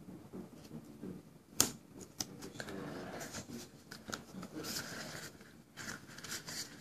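Duct tape being handled and worked by hand: rustling and crinkling, with a sharp click about a second and a half in and a few smaller clicks after it.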